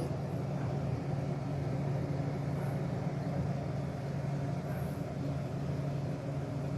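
Steady low machine hum, constant in pitch and level, with no other sound standing out.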